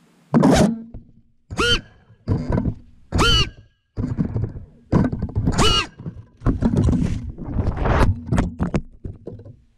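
FPV freestyle quadcopter's brushless motors revving in a run of short throttle bursts, each rising and falling in pitch, with knocks and thuds as the quad thrashes in tree branches to break itself free.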